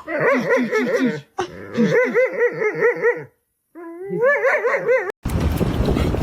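A dog vocalizing in runs of quick, wavering yips and whines, each note bending up and down in pitch, in three spells with short breaks. About five seconds in it cuts to a steady rush of wind noise.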